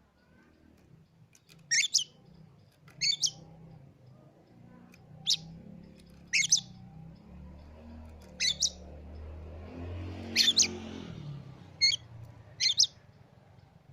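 Oriental magpie-robin giving about eight short, sharp high calls spaced one to two seconds apart. Under it, a low background rumble swells in the middle and fades again.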